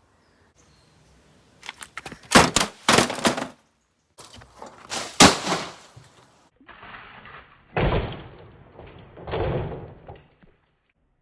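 A series of knocks and thumps in clusters, the later ones duller.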